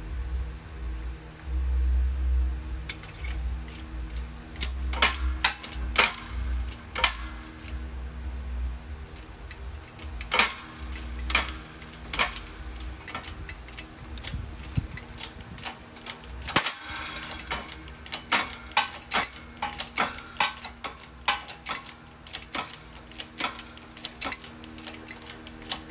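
Irregular metallic clicks and taps from a Triumph Spitfire axle's universal joint being worked in a shop press to push out its bearing caps, with low thumps during the first several seconds.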